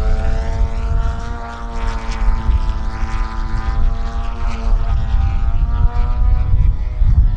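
Nitro engine of an AJ Laser 230 radio-control aerobatic plane running in flight, a steady propeller drone whose pitch wavers slightly as the throttle changes, over a low rumble.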